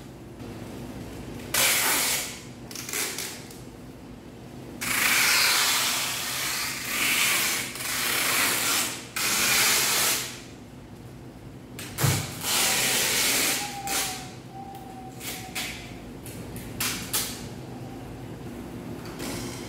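Tape being pulled off the roll in several long rasping strips, being stretched across window glass. There is a single knock about twelve seconds in.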